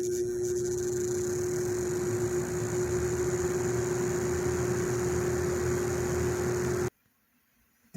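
Lasko 3733 box fan running on its low speed setting: a steady motor hum on one tone over an even rush of air. It cuts off suddenly about seven seconds in.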